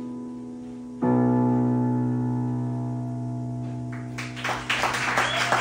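Yamaha digital piano playing the closing chords of a slow song: one chord fading, then a new chord struck about a second in and left ringing as it slowly dies away. Near the end an audience starts clapping.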